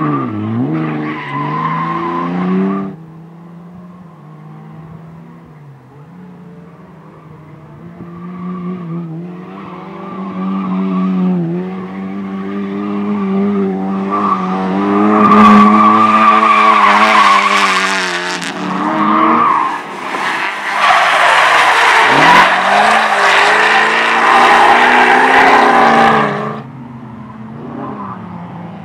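A competition car driven hard through a slalom course: the engine revs up and down, with tyres squealing in the turns. It is quieter for a few seconds early on, then loudest with heavy tyre squeal through the middle and second half as the car comes close, dropping off sharply near the end.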